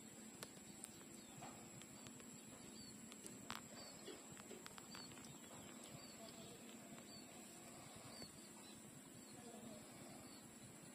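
Near silence from puppies nursing at their mother: a few faint soft sucking clicks, with a faint high chirp repeating about once a second in the middle.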